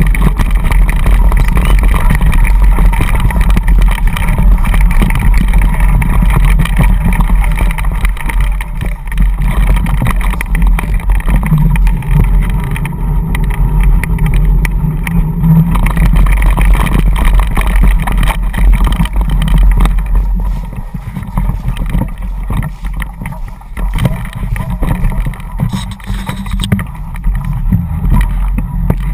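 Tufftrail dog scooter rolling at speed: a loud, steady rumble of wind on the microphone and tyres on the ground, with small knocks and rattles throughout. It eases a little about two-thirds of the way through.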